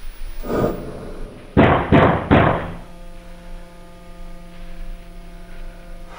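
A softer thump, then three heavy knocks on a door in quick succession, followed by a low steady hum.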